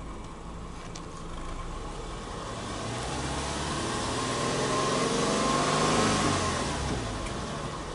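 Subaru Legacy Touring Wagon 2.0i's EJ20 flat-four (boxer) engine being free-revved while parked, heard at the tailpipe. The exhaust note climbs steadily for about five seconds, peaks, then drops quickly back toward idle.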